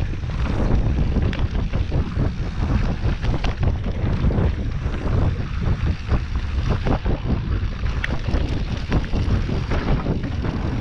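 Wind buffeting the microphone as a mountain bike rolls fast down a dirt trail, under frequent clicks and rattles from the bike and its tyres over rough ground.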